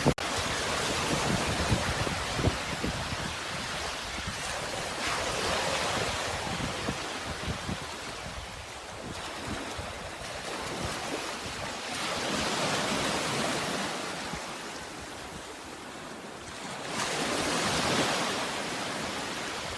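Sea surf washing in, with the rush of water swelling and fading in slow surges a few seconds apart.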